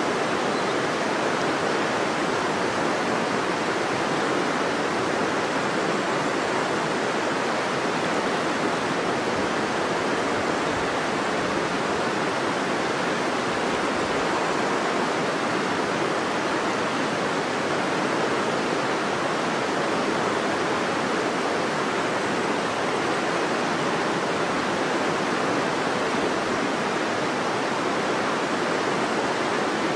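River water rushing, a steady unbroken sound with no changes.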